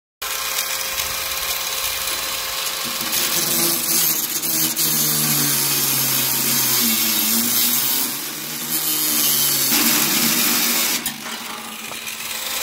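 Angle grinder cutting off a rusted, seized bolt on the underside of a steel mower deck. It starts abruptly: a harsh grinding hiss over the motor's whine. The motor note wavers and dips as the disc bites, louder through the middle stretch.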